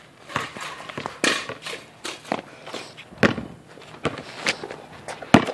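Footsteps on concrete: a string of irregular sharp steps and scuffs, with one louder knock near the end.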